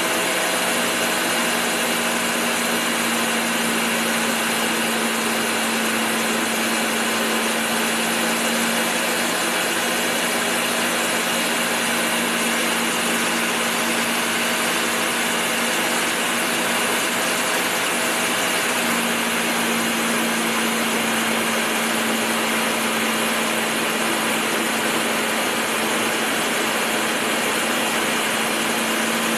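Steady jet engine and airflow noise heard inside an aircraft cabin in flight: an even, unchanging rush with a steady hum under it that drops out for about ten seconds midway and then returns.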